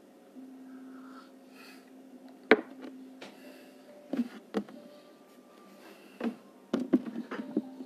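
Hands knocking and tapping on a wooden desk: several sharp knocks, the loudest about two and a half seconds in and a quick cluster near the end, over a steady low hum.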